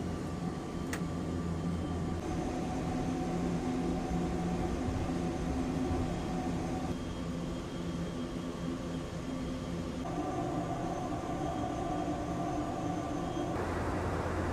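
Airbus A400M's turboprop engines heard inside the cockpit: a steady drone with several held propeller tones. There is one click about a second in. Near the end it changes to a louder, hissier drone.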